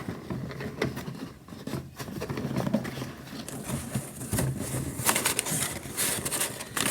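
Shipping box being opened by hand: rustling, tearing and scraping of packaging with scattered clicks, busier and brighter from about halfway.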